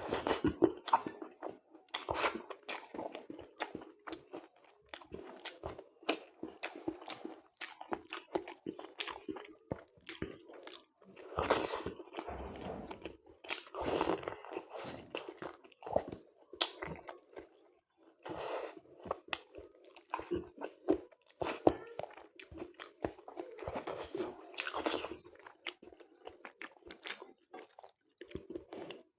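Close-up sounds of a person eating spicy chicken curry with luchi and salad: irregular wet chewing and crunchy bites.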